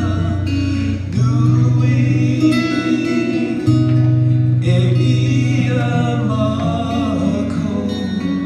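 A man singing a slow song to his own steel-string acoustic guitar.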